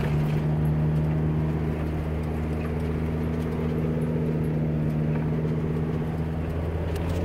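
A Ford camper van driving at a steady speed, heard from inside the cab: a steady engine drone with road noise.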